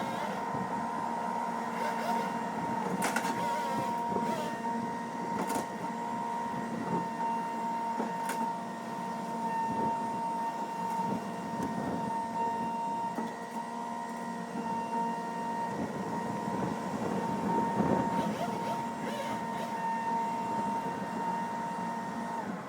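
A small engine-driven machine running steadily at high speed, with a few sharp cracks over it. It cuts off near the end.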